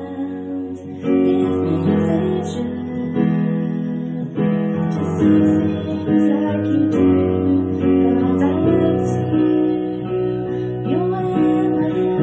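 Instrumental intro of a worship song played on a digital keyboard: steady chords changing every second or so, with a melody line above.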